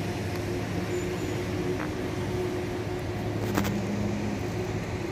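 Steady low hum of city traffic and machinery, with a faint tick about three and a half seconds in.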